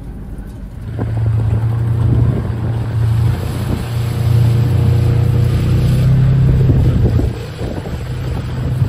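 Vehicle engine running with wind noise on the microphone, heard from inside the cab while driving; the drone gets louder about a second in.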